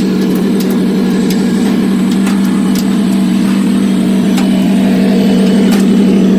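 A car engine running steadily at idle, a loud, even drone.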